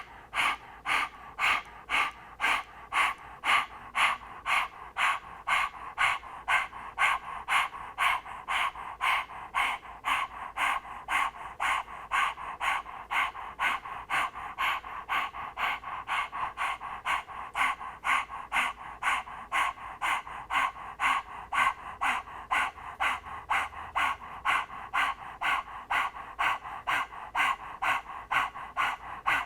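A woman panting rapidly through an open mouth with her tongue out, in the yogic puppy dog breath, about two to three even breaths a second.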